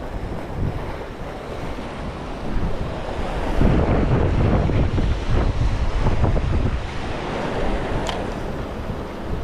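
Ocean surf washing, with wind buffeting the microphone. The rush grows louder for a few seconds in the middle.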